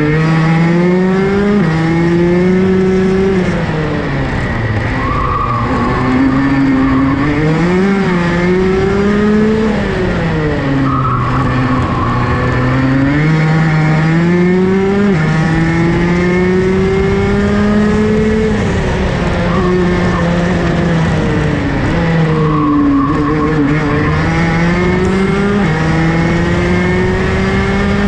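Onboard sound of a Rotax DD2 race kart's 125 cc single-cylinder two-stroke engine at racing speed. Its revs climb and then drop away again several times as the kart is driven through the corners.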